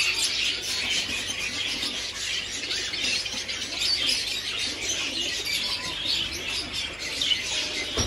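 Many small caged birds chirping densely and continuously, a thick overlapping twitter, with fainter lower calls underneath.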